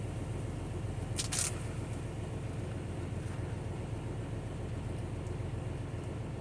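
Semi-truck engine idling with a steady low hum, and a short rustle about a second in.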